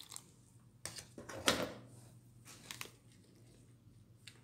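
Quiet kitchen handling sounds: water poured from a plastic cup into a plastic tub of instant seasoned flour, and a metal spoon scraping and tapping the tub as the batter is mixed. A few brief scrapes and taps, the loudest about a second and a half in.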